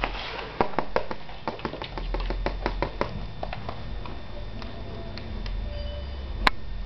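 Old English Sheepdog puppy's claws clicking and pattering on a hard floor: quick taps for the first few seconds, then only a few, with one sharp click near the end.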